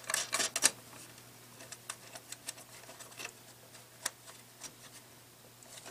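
Small metal clicks and taps as a battery hold-down bracket and its nut are fitted by hand inside a metal emergency-light housing: a quick cluster of clicks at the start, then scattered single ticks.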